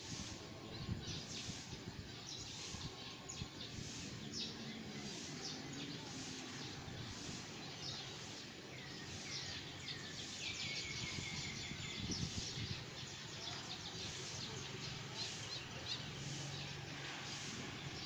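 Outdoor ambience with small birds chirping: short high chirps repeated every half second or so over steady background noise. A few falling whistled calls come near the middle.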